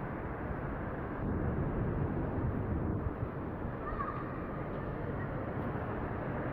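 Steady outdoor background noise heard through a phone's microphone: a low rumble of distant traffic, growing a little louder about a second in.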